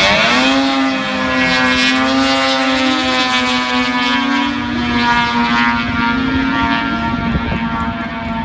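Engines of a sport bike and a small kart-style drag vehicle launching off the drag-strip start line and accelerating away. The pitch dips at the launch, climbs over the first couple of seconds, then levels off, and the sound grows duller as the vehicles recede down the track.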